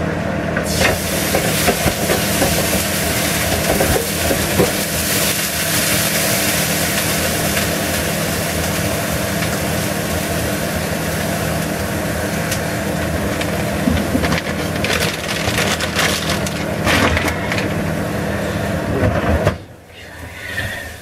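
Water from a kitchen tap running onto a hot frying pan in the sink, sizzling as it turns to steam, in a steady rush that stops suddenly near the end.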